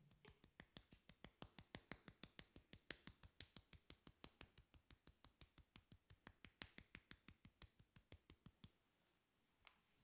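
Hands tapping rapidly on a person's head in an Indian head massage: quiet, even taps, about six a second, stopping about nine seconds in, with one last tap near the end.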